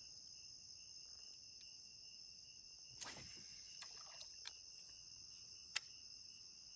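Night insects chirring: a steady high crickets' trill, with another insect pulsing about twice a second. About three seconds in there is a brief swish, and near the end a single sharp click.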